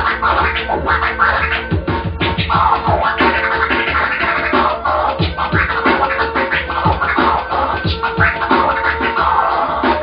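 DJ scratching a vinyl record on a turntable over background music, with rapid back-and-forth scratch strokes.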